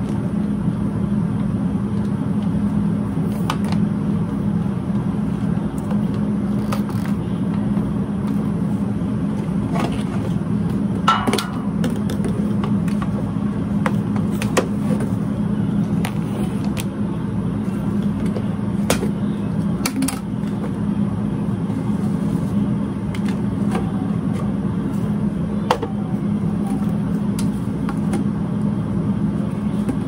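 A steady low machine hum with scattered light clicks and knocks.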